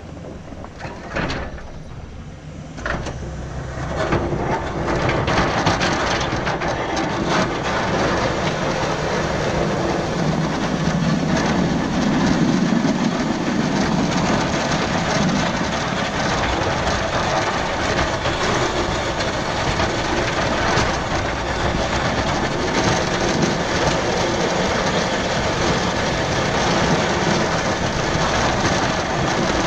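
Pickup truck with a Fisher V-plow pushing snow: a steady, loud rush and scrape of the blade driving snow along the pavement, mixed with the truck running, heard from a camera mounted on the truck's front. A couple of knocks in the first few seconds, then the noise builds about four seconds in and holds.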